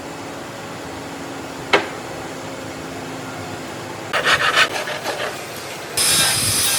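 Woodworking shop sounds: a single sharp knock of wood about two seconds in, and a short burst of scraping, clattering wood around four to five seconds. A loud steady hiss starts suddenly near the end.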